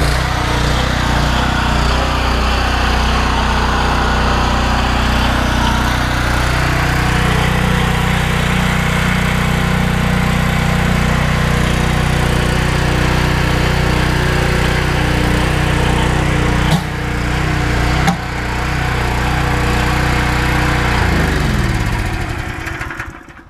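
Pressure washer running a rotary flat surface cleaner, with a steady low hum and the hiss of the water jets; it dips briefly twice, then winds down with a falling pitch and stops near the end.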